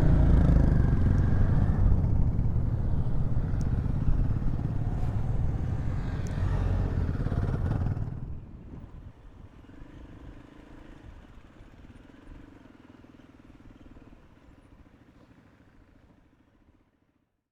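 Motorcycle engine running with a heavy low rumble for about eight seconds, then dropping suddenly to a faint hum that fades out near the end.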